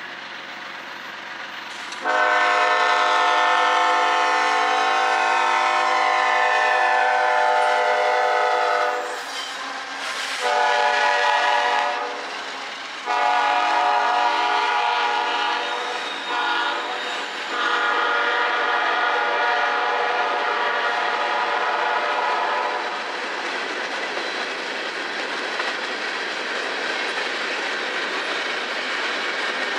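Kansas City Southern freight locomotive's air horn sounding four loud blasts, the first about seven seconds long and the second short, as the train arrives. The horn then gives way to the steady rumble and clatter of covered hopper cars rolling past.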